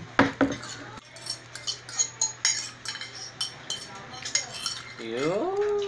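Metal fork clinking and scraping on a ceramic plate while the last of the spaghetti is gathered up, in a string of light irregular clicks. Near the end a long tone rises and then holds.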